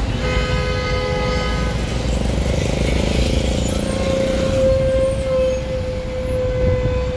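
City road traffic: car and bus engines running with a steady low rumble. A vehicle horn is held for about two seconds near the start, and a steady hum grows louder about four seconds in.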